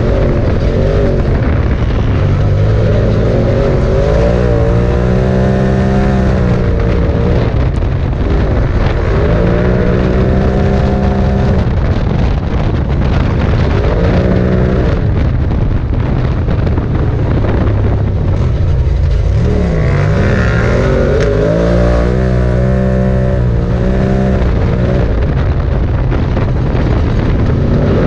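Side-by-side UTV engine heard from inside the open cab while driving a dirt trail, its revs rising and levelling off again and again as the throttle is worked, over a constant rumble of the ride.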